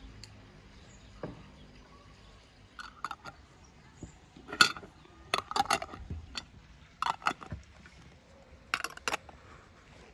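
Glass jars and metal twist-off lids clinking and knocking on a wooden table, a series of short sharp clinks in small clusters.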